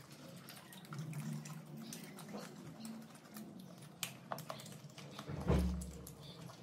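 Popcorn being crunched and chewed, with many small crisp clicks, as hands rummage through popcorn in plastic bowls. A dull thump about five and a half seconds in is the loudest sound.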